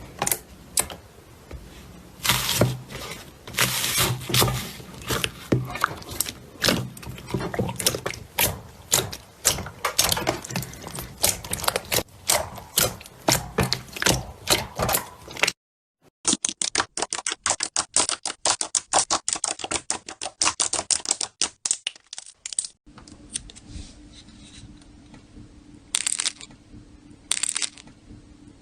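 Slime being squeezed, stretched and pressed by hand, giving dense wet crackling and popping. A little past halfway it cuts to a quicker run of sharp clicks. A quieter stretch with a low steady hum and two short bursts of crackling follows.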